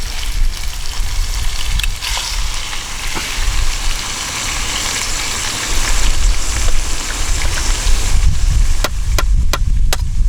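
Food sizzling over a small wood fire, with an uneven low rumble underneath and a few sharp clicks near the end.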